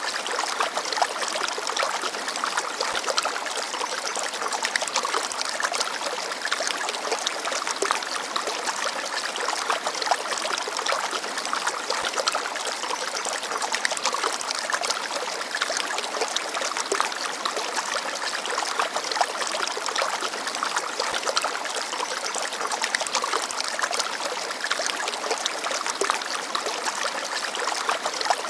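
Shallow forest stream babbling over rocks: a steady, even rush of water full of small trickling splashes.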